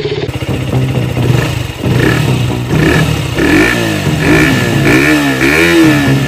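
Motorcycle engine running, then blipped about four times in the second half, the pitch rising and falling with each rev.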